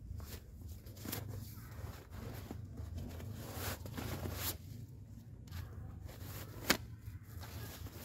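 Rustling and crinkling of a rolled quilted synthetic fabric item being unrolled and shaken out by hand, with one sharp click about two-thirds of the way through.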